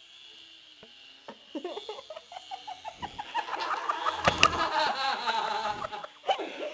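A man laughing hard, a run of loud cackling laughter that starts about a second in and keeps going.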